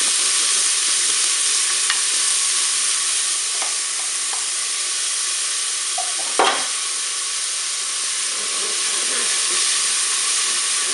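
Chopped onion sizzling steadily in hot olive oil in a multicooker bowl, being browned and stirred with a wooden spatula, with a single knock about six and a half seconds in.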